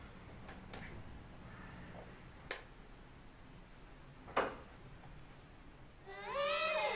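A few sharp clicks over a low hush, the loudest about four and a half seconds in. Near the end, music with a melody line swells in.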